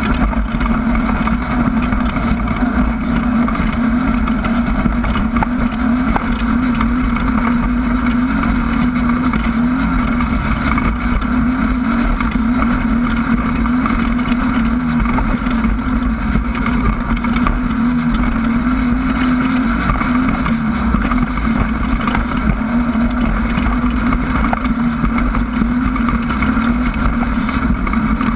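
Class 1600 desert race car's air-cooled 1600 cc VW engine running steadily at speed over rough ground, a loud, even drone.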